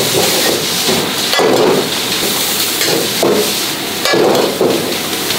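Minced meat sizzling in a hot wok as a metal ladle stirs and scrapes it, with about three sharp clanks of the ladle against the wok.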